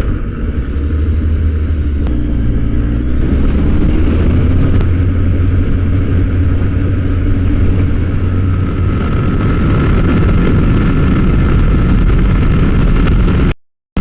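Kawasaki ZX-10R's inline-four engine running steadily while riding, with wind and road noise. The sound cuts off abruptly near the end.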